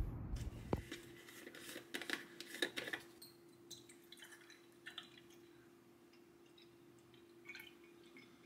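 Milk poured from a paper carton into a glass tumbler, with a few light clicks and taps as the carton and glass are handled about two seconds in. A faint steady hum runs underneath.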